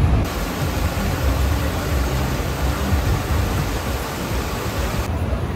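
Steady rumbling hiss of a metro station, with no distinct events, starting abruptly a moment in and giving way to a different background near the end.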